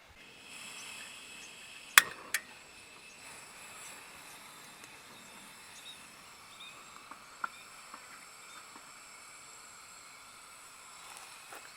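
Steady, high insect chirring in the background. Two sharp knocks about two seconds in, the first the loudest sound, with a few small ticks later.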